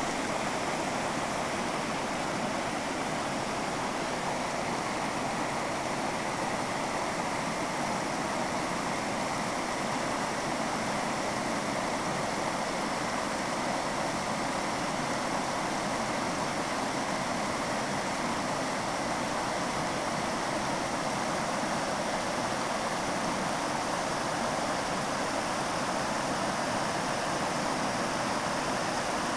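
Stream water rushing and splashing steadily over a small weir of bamboo stakes and rocks, the weir overflowing with high water.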